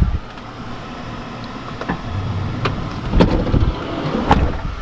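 Portable air conditioner running with a steady hum, with about four sharp clicks and knocks from things being handled and moved.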